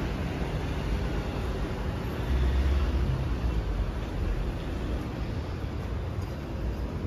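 Road traffic noise: a steady low rumble of passing cars, swelling for about a second a little over two seconds in.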